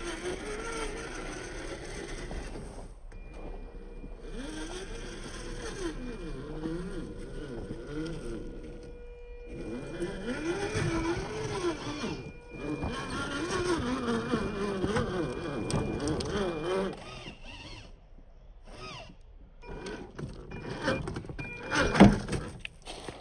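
Electric motor and gear drivetrain of a 1:10 scale RC rock crawler whining, its pitch rising and falling again and again with the throttle as it crawls over gravel and rocks. A single sharp knock comes near the end.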